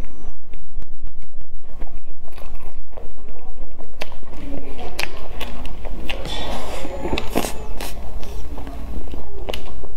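Close-miked chewing and crunching of a crisp, crumbly-crusted pastry. The crust crackles as it is pulled apart by hand, and a crunchy bite follows near the end.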